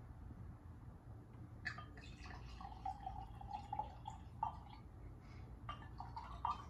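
White wine pouring from a glass bottle into a stemmed wine glass: a faint trickle and glug that starts about two seconds in, followed by a few small drips and ticks near the end.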